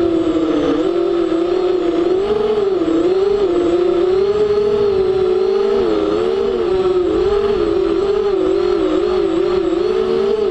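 Motors and propellers of an FPV aircraft, heard from its onboard camera: a steady whine whose pitch dips and rises about once a second as the throttle changes.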